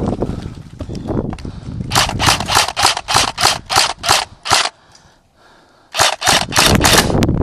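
Airsoft rifle firing close by in quick strings of sharp shots, about four a second: a string of around ten shots from about two seconds in, a short lull, then another string of about six near the end.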